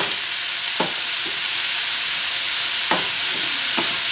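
Ground venison and chopped vegetables sizzling in a hot wok, with a wooden spatula scraping and knocking against the pan a handful of times as the food is stirred.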